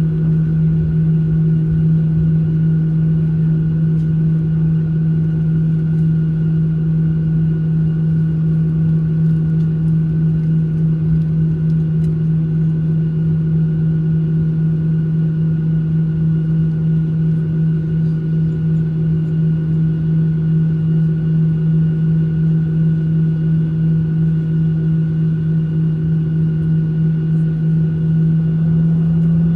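Steady drone inside the cabin of a Boeing 737-800 taxiing, heard from a seat over the wing: a strong low hum with fainter higher steady tones over a rumble.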